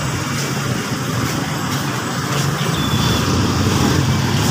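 Steady motor-vehicle engine noise with a low rumble, growing a little louder in the second half.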